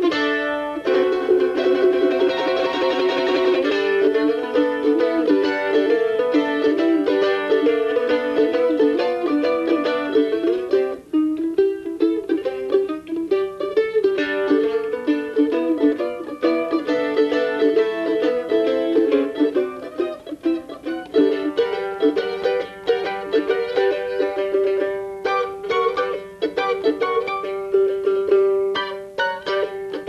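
Solo F-style mandolin picked in quick melodic runs. From about two-thirds of the way in, a held note is tremolo-picked for several seconds.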